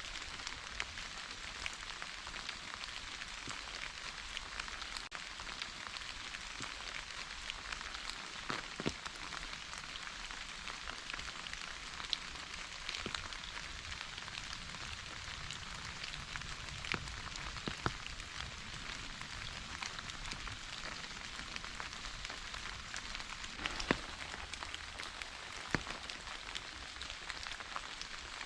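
Steady rain falling on a surface: an even hiss with scattered sharper drop impacts.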